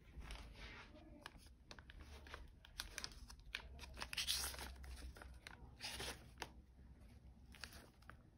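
Vinyl records in plastic outer sleeves being flipped through in a wooden crate: a run of short crinkling, rustling swishes and a few light clicks, loudest about four seconds in.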